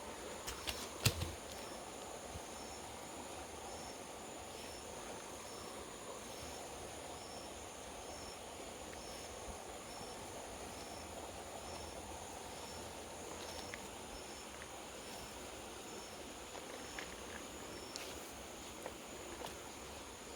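Insects calling: a steady high-pitched drone, with a short high chirp repeating about once a second. A few sharp clicks sound over it, the loudest about a second in.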